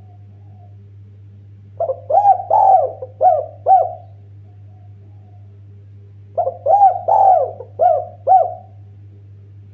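Spotted dove cooing: two phrases of about five arched coos each, the first starting about two seconds in and the second about six and a half seconds in. A steady low hum runs underneath.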